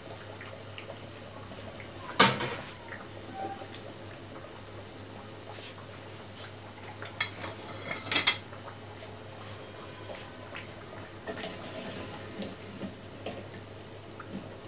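Metal spatula and slotted skimmer clanking against a steel kadai: two sharp clanks about two seconds in and about eight seconds in, then lighter taps, over the steady faint sizzle of balushahi frying in hot oil.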